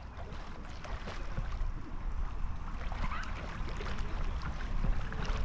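Sea water sloshing and lapping around a camera held at the surface by a swimmer, with many small splashes and a low rumble on the microphone, growing a little louder over the first couple of seconds.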